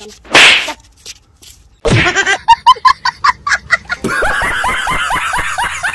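A loud smack, like a slap, about half a second in. From about two seconds on, laughter in rapid, even ha-ha pulses, thickening about four seconds in.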